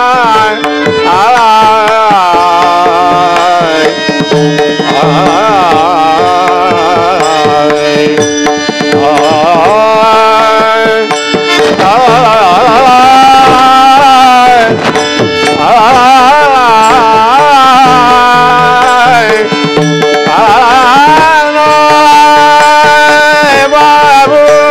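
Devotional kirtan singing: a male voice draws out long, ornamented held notes with no clear words, over a steady drone and repeating drum beats.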